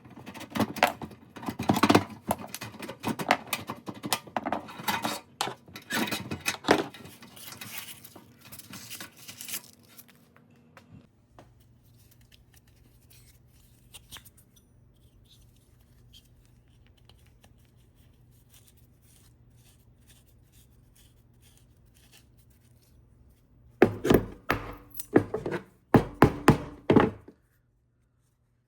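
Irregular knocks and clatter of hard objects being handled, then a faint low steady hum for a while, then another quick series of sharp knocks near the end.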